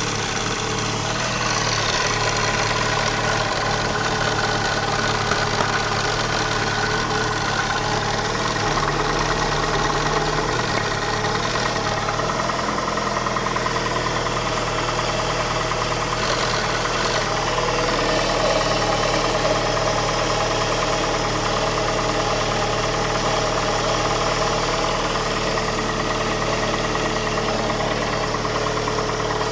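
Opel Astra's 1.6 16-valve Ecotec four-cylinder engine running steadily, with a strange noise the owner cannot place.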